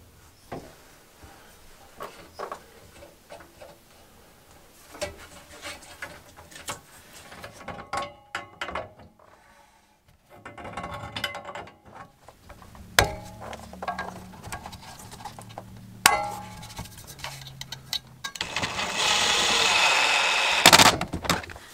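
Scattered clicks, knocks and metal clinks of hand work on plumbing fittings. Near the end a cordless drill runs for about two and a half seconds, driving in a screw.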